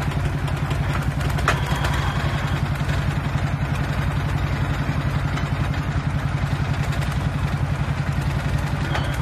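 Tractor engine of a tractor-mounted drilling rig running steadily with an even pulsing beat while the rig works. A single sharp clink sounds about a second and a half in.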